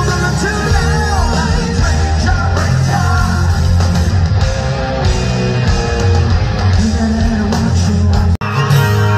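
Live rock band playing through a festival PA: electric guitars, drums and keyboards, with pitch bends in the lead line. The sound cuts out abruptly for an instant about eight seconds in, then band music carries on.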